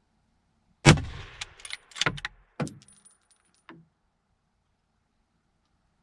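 A single 6.5x55 rifle shot, a sharp loud crack about a second in, followed by a quick run of metallic clicks and clacks as the rifle's action is worked and the spent case is ejected.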